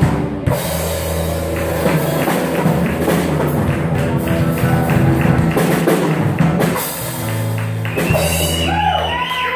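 Live blues band playing: electric guitar, acoustic guitar and drum kit with cymbals over a steady, repeating low bass figure. Near the end a high note bends and wavers over the groove.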